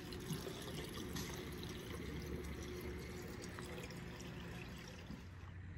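Water being poured into a car's radiator: a faint, steady pour that eases off slightly near the end.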